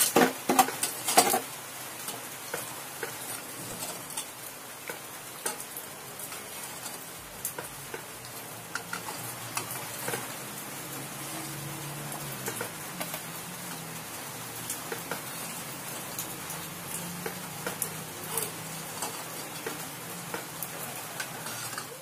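Molten lead from scrap car batteries hissing and crackling in a stainless pot over a gas burner. A metal spoon scrapes and clinks against the pot as the dross is skimmed off, sharpest in the first second or so.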